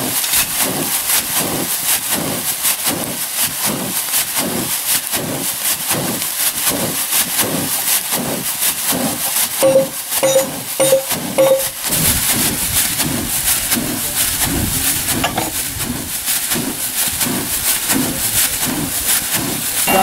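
Plastic-bag bellows of a small charcoal forge being pumped by hand with two sticks: a rhythmic rustle and rush of air about twice a second as the bag is opened and squeezed. A little before halfway through, four short beeps sound.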